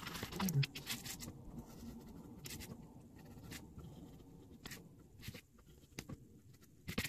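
X-Acto hobby knife blade scratching and ticking as it cuts through sticker paper onto a plastic cutting board: an irregular run of short scrapes and clicks.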